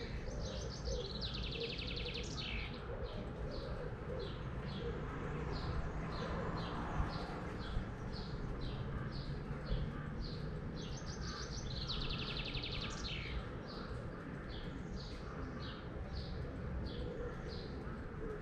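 Small songbirds calling: a steady run of short chirps, about two a second, with a fast trilled song phrase heard twice, about ten seconds apart, over low steady background noise.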